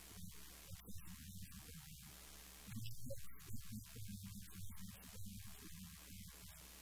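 Low electrical mains hum on the recording, with faint, irregular muffled sounds coming and going over it, a little louder about three seconds in.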